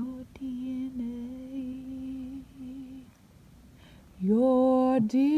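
A woman humming a slow tune in long held notes, quiet at first and much louder from about four seconds in.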